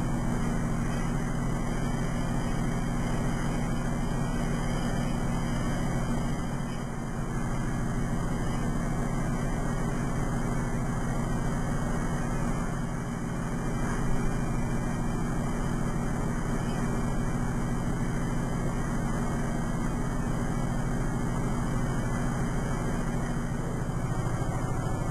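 Steady machine hum and fan noise from a running CNC plasma table while its digitizing probe traces a steel part, with no cutting arc. A brief louder knock about fourteen seconds in.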